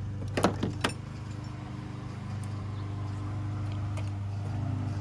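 Two sharp metallic clicks about half a second apart, from hand work unbolting and pulling an ignition coil, over a steady low machine hum.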